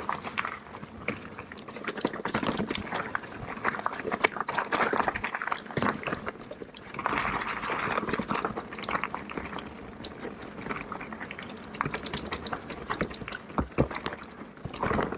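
Electric mountain bike rolling down a root-covered dirt trail: steady tyre noise with a dense run of clicks and knocks as the bike rattles over roots and bumps.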